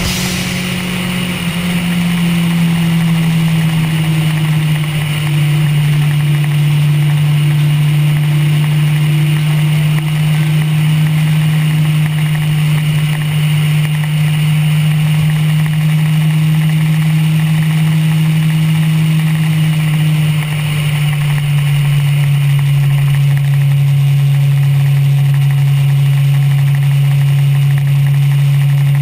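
Motorcycle engine cruising on the open road: a steady, loud drone that drops a step in pitch about a second and a half in and again about twenty seconds in, over a steady hiss of wind and road noise.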